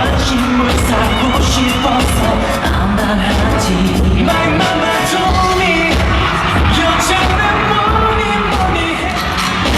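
Live pop song performed on stage: a male singer over a band or backing track with a steady drum beat.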